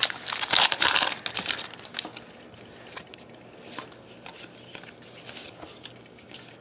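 Shiny foil wrapper of a 2012-13 NBA Hoops basketball card pack crinkling as it is peeled off the stack of cards, loud for about the first second and a half. After that come faint, scattered ticks and rustles as the cards are slid through by hand.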